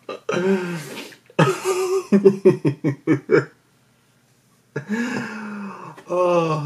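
A man laughing hard into his hands in quick bursts, then, after a short pause, a long drawn-out vocal cry near the end.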